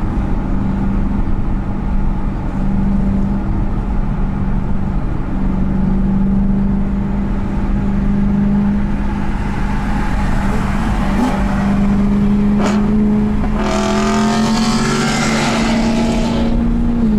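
BMW M3 E92's naturally aspirated V8 with a modified exhaust, heard from inside the cabin, running at a steady cruise with a drone that rises slowly in pitch. Near the end a louder rushing sound with shifting tones lasts about three seconds.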